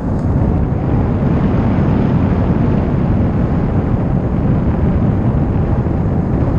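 Loud, steady wind rush over the microphone of a camera carried in paraglider flight, heavy and rumbling in the low end.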